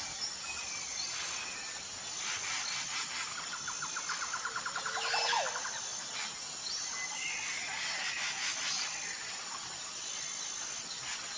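Nature ambience: assorted birds chirping and calling, with a rapid trill in the middle, over a steady high insect drone.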